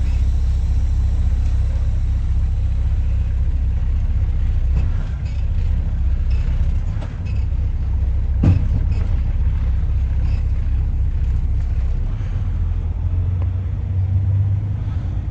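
Semi truck's diesel engine idling, a steady low rumble, with scattered light clicks and one sharper knock about eight and a half seconds in.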